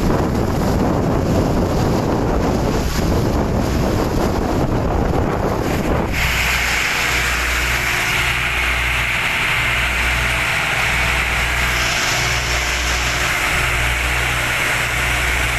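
Catamaran under way on its sea trial: wind buffets the microphone and water rushes past. About six seconds in the sound changes to a steadier drone of the Powercity marine engine, with a low throb pulsing about once a second.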